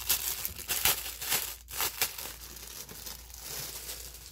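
Clear plastic wrapping crinkling and rustling as a makeup bag is handled and unwrapped, busiest in the first two seconds, then lighter.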